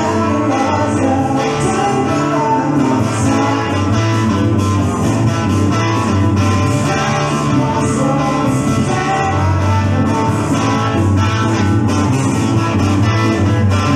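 Blues-rock band playing with a distorted Stratocaster-style electric guitar over a steady bass line and beat, a man singing over it.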